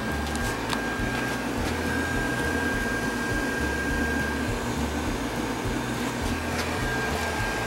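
Steady whir and hum of a running electric motor or fan, with a constant faint high whine over it. A few light clicks and knocks of handling near the start, and a sharper click at the end.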